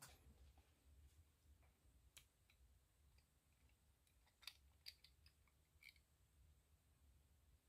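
Faint clicks and light taps of a fountain pen's cap and barrel being handled, the cap tried to see whether it screws or snaps on; a few scattered clicks, two a little louder just past the middle, over a low steady hum.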